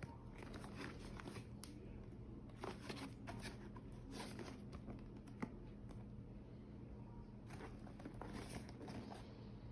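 Packaging being handled and unwrapped: faint irregular rustling and crinkling, with a few small clicks, one sharper than the rest about halfway through.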